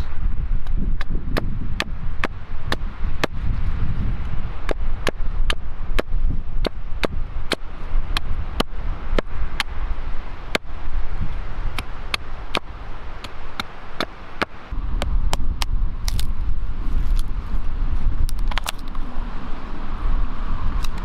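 Wood fire crackling, with sharp irregular pops about twice a second, over a gusty rumble of wind on the microphone.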